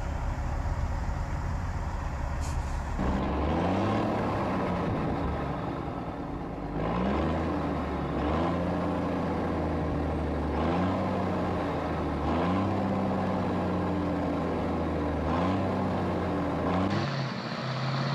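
Diesel engine of a cabover semi truck running with a low rumble, then revving up and dropping back again and again, about every two seconds, as the truck works up through its gears.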